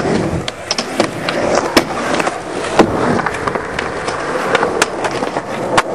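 Skateboard wheels rolling over a concrete skatepark surface, broken by several sharp clacks of the board striking the ground.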